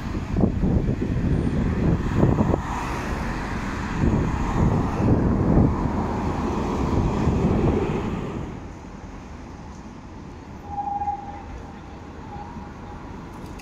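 A tram running past close by with a heavy rumble that fades after about eight seconds, leaving quieter street background. A brief steady tone sounds about three seconds after the rumble fades.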